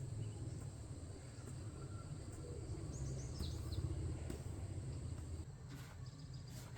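Outdoor background with a steady low rumble that eases near the end, and a short run of quick high chirps from a small bird about three seconds in.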